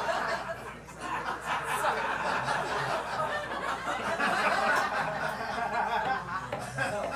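Comedy club audience laughing at a roast joke: many voices laughing together throughout.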